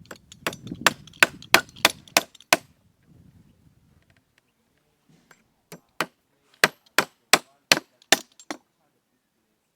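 Hammer blows on wood, in two runs of about eight quick strikes each, roughly three a second, with a pause of a few seconds between the runs.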